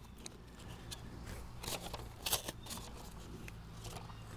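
Gloved hands working raw biscuits out of an opened cardboard biscuit-dough can: faint rustling with a few short clicks and taps, over a low steady hum.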